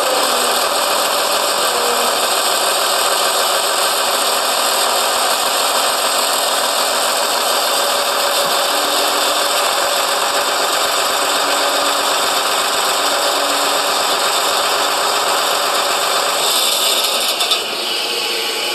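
Concrete pump's engine and hydraulics running steadily while driving the piston rod toward the hopper end. About 17 seconds in there is a brief brighter hiss, after which the sound drops a little.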